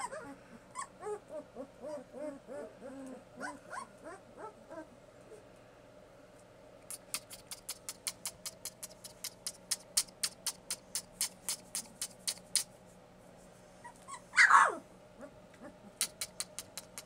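Two-week-old puppies whimpering and squeaking in a quick string of short, high cries. This is followed by a run of sharp, evenly spaced clicks at about three a second. About fourteen seconds in comes one loud yelp that falls steeply in pitch.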